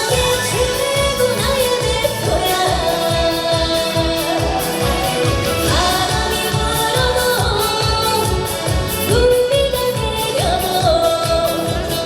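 A woman singing a trot song over accompaniment with a steady beat, holding and sliding between notes.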